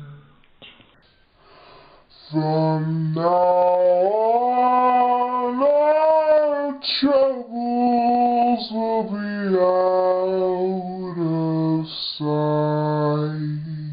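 A woman singing solo and unaccompanied, in long held notes that slide up and down in pitch. The singing starts about two seconds in after a quiet moment, and breaks off briefly near the end before going on.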